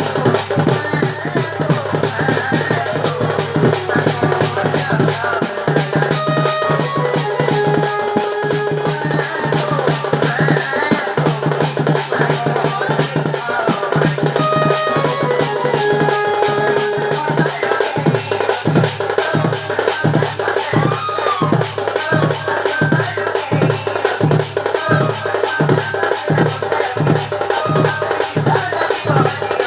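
Folk music with fast, dense drumming and a melody line over it; about two-thirds of the way through, a low drum settles into a steady, evenly spaced beat.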